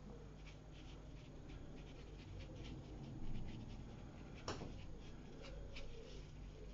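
Paintbrush dabbing and scratching on watercolour paper in quick, faint strokes, with one sharper tap about four and a half seconds in.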